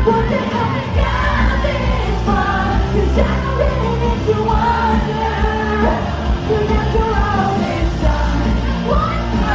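Live pop music in a concert hall: a woman singing over a band or backing track with a steady bass line, and the audience yelling along.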